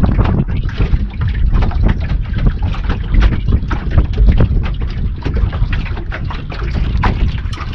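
Wind buffeting the microphone in gusts, with irregular knocks and water lapping against the hull of a small fishing boat.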